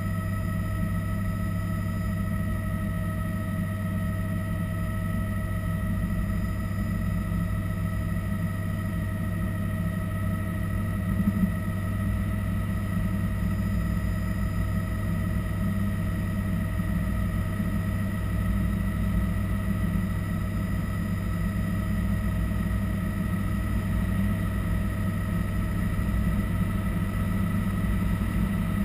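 Cabin noise of a Bell 206 JetRanger helicopter in cruise: the Allison 250 turboshaft engine and main rotor making a steady, unbroken drone with a few steady whining tones above it.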